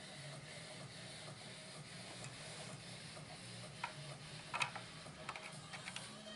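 Faint clicks and taps of plastic toy parts being handled and fitted together, a few sharper ones from about four seconds in, over a low steady hum.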